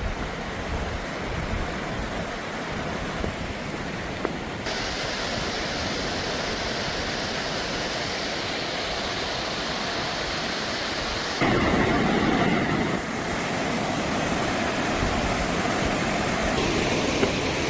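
Fast-flowing river water rushing in a steady roar; it fills out about five seconds in and grows louder for a couple of seconds around eleven seconds in.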